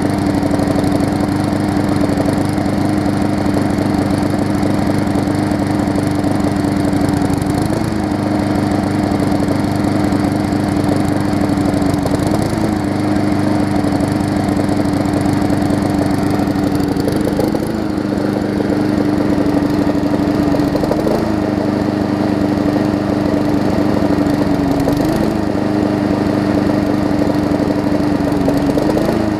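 Briggs & Stratton Classic push-mower engine running steadily at speed. Its pitch wavers briefly about every four or five seconds, which the owner thinks is the engine battling a little water on the spark plug after a wash.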